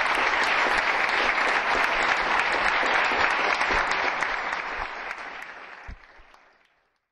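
Audience applauding, a steady clapping that dies away over the last couple of seconds.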